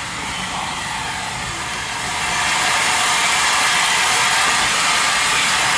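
Steam hissing steadily from standing steam locomotive No. 847, growing louder about two seconds in and then holding.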